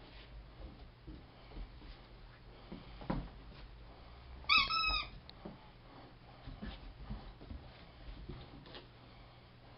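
Green rubber squeak toy squeaking once about halfway through, a short high two-part squeal, amid a few soft knocks on the wooden deck.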